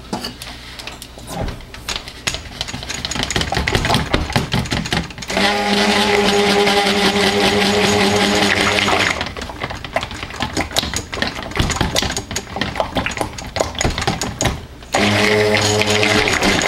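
Stick blender running in a plastic jug of soap batter, two steady spells of its motor hum, one of about four seconds starting about five seconds in and another starting near the end. Between them, irregular clicking and clatter as the blender head is worked through the batter.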